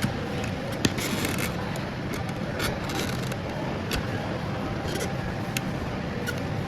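Steady low vehicle rumble with scattered short clicks and scrapes.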